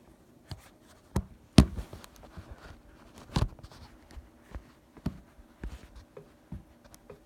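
Scattered clicks and taps of the steel parts of a Marlin 336 lever-action rifle being handled and lined up during reassembly. The loudest knock comes about a second and a half in.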